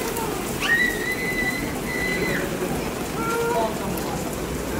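Heavy rain pouring steadily onto a flooded paved path and splashing into standing water. About half a second in, a high whistle-like tone sounds, held for nearly two seconds. It is followed a second later by a few short falling notes.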